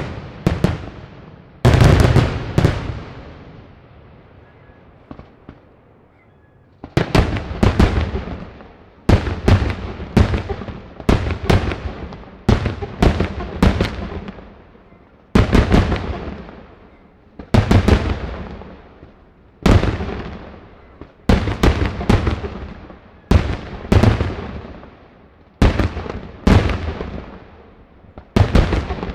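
Daytime aerial fireworks shells bursting in loud, sharp bangs, each trailing off in echo. After two bangs near the start and a lull of a few seconds, the bangs come one to three at a time, about every second.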